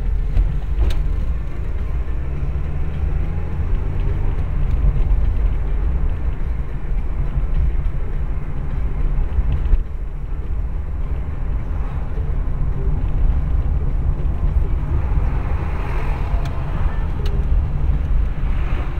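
Car cabin noise picked up by a dashcam's built-in microphone while driving in traffic: a steady low rumble of engine and tyres on the road. A single click and a brief dip in level come about halfway through.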